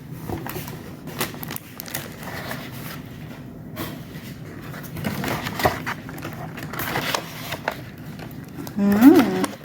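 Handling of paper and plastic merchandise: rustling with scattered light clicks and taps. A short hummed voice sound rises and falls near the end.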